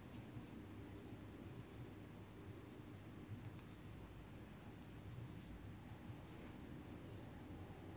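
Faint, irregular rustling and scratching of cotton yarn being pulled through loops by a metal crochet hook while double crochet stitches are worked.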